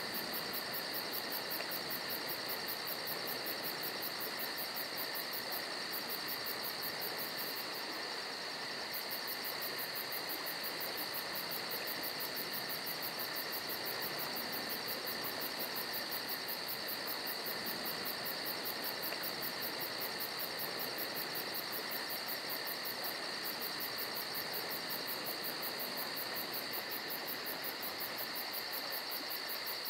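Crickets chirring in a fast, even, high pulse over the steady hiss of a camera trap's microphone at night.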